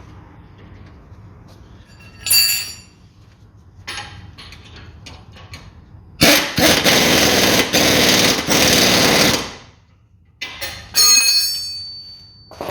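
A ringing metal tool clink, then an impact wrench hammering for about three seconds as it tightens the suspension ball-joint bolt and nut. Another ringing metal clink follows near the end.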